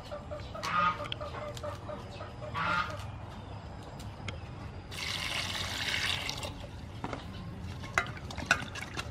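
Lettuce leaves being washed by hand in a stainless steel bowl of water: splashing and swishing, loudest for about a second and a half near the middle, with a few sharp clicks near the end. Poultry call twice in the first three seconds.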